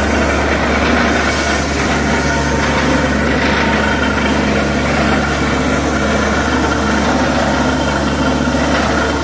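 Truck-mounted borewell drilling rig running steadily while drilling a bore, a loud, unbroken mechanical din.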